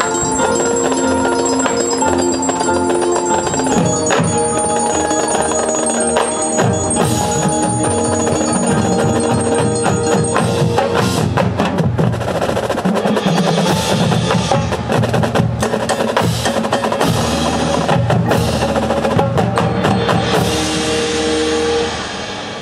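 Marching band percussion: held, ringing bell-like tones at first, then about six seconds in the drumline comes in with snare, tenor and bass drums and several crashes, growing busier.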